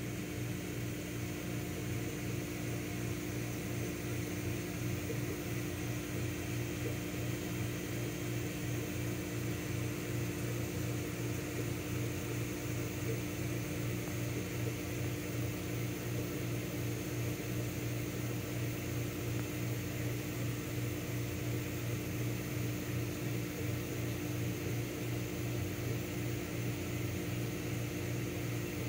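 Steady electrical hum of running aquarium equipment, a constant buzzing drone with a faint hiss over it.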